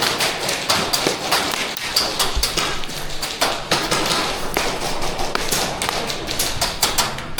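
Airsoft guns firing: many sharp snaps and clicks at irregular intervals, some in quick runs, with scattered thuds.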